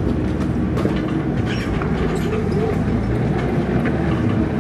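Mini excavator's diesel engine running steadily while the machine travels on its crawler tracks, with a rapid, irregular clatter of the tracks.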